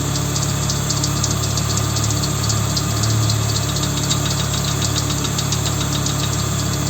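Volvo 850's five-cylinder engine running steadily with a rapid, regular knocking tick over the hum: the engine knock the owner is recording.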